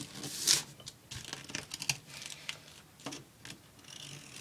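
Duct tape being pulled off the roll and pressed onto a crinkling plastic bag: a louder ripping stretch about half a second in, then scattered short crackles and ticks.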